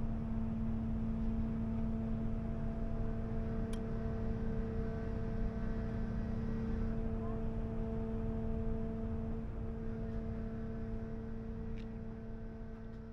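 Boat engine running at a steady speed: a constant low hum with an unchanging pitch over a low rumble, fading out near the end.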